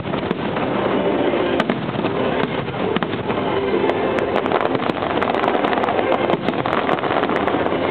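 Aerial fireworks shells bursting in quick succession over a steady din, turning into rapid crackling from about halfway in.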